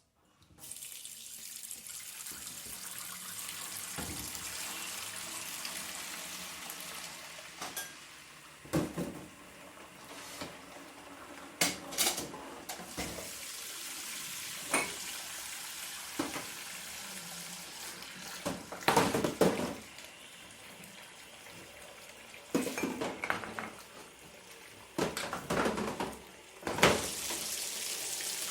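Washing up at a kitchen sink: the tap runs steadily while dishes and cutlery clink and clatter against each other, with a few louder knocks of crockery.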